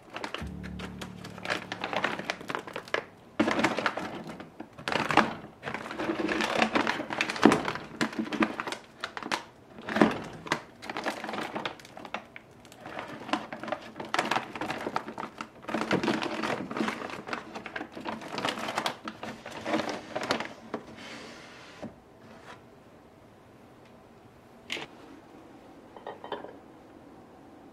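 Kitchenware being handled: dishes and utensils knocking and clinking, with some rustling. The clatter is busy for about twenty seconds, then drops off to a couple of isolated clicks near the end.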